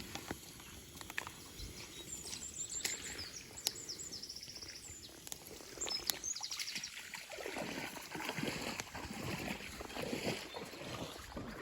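Small birds singing high chirps and quick trills in the first half. From about halfway, close rustling and crackling noise takes over.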